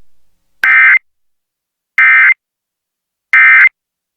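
Emergency Alert System end-of-message signal: three short bursts of warbling digital data tones (the SAME "NNNN" code), each about a third of a second long and roughly a second and a half apart. It marks the end of the broadcast severe thunderstorm warning.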